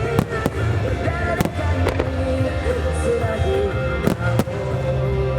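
Aerial fireworks shells bursting, about six sharp reports at irregular intervals, over the show's music soundtrack.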